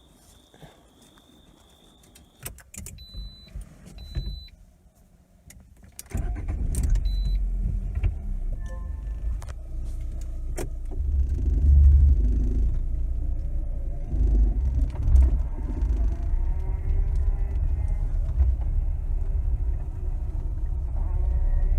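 Lada Granta FL car heard from inside the cabin: a few clicks and short electronic beeps, then about six seconds in it moves off with a steady low road rumble and an engine note that rises as it accelerates. It is a test drive over the suspension just freed of its squeak, and no squeak stands out.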